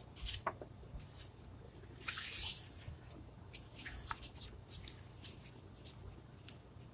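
Glossy sticker-book pages rustling and swishing as they are flipped and handled, in a series of short brushes of paper, the longest about two seconds in.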